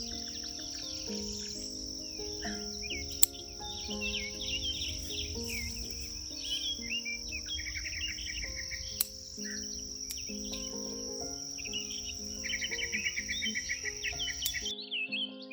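Steady high insect drone with birds chirping and trilling, over soft background music. The insect drone cuts off suddenly near the end.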